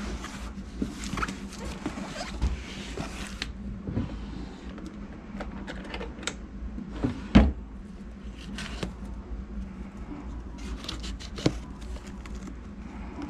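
Cardboard shipping box being handled and its packing tape slit with a knife: scraping, rustling and tearing with scattered clicks, and one sharp knock about seven seconds in.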